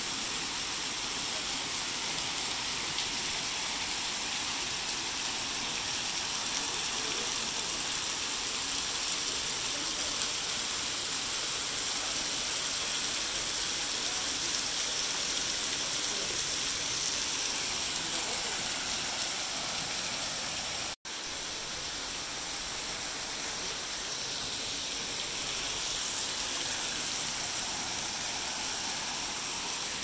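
Steady rush of falling water, a dense even hiss strongest in the upper range, broken by a momentary dropout about two-thirds of the way through.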